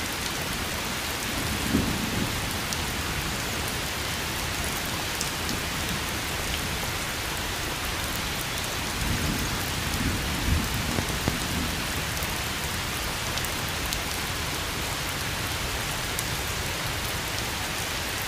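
Steady hiss of falling rain with scattered light ticks, and a couple of low rumbles that swell and fade, around two seconds in and again about ten seconds in.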